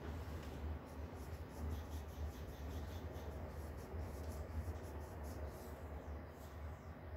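Passenger train heard from aboard while it runs: a steady low rumble with a noisy hiss over it and faint light clicks.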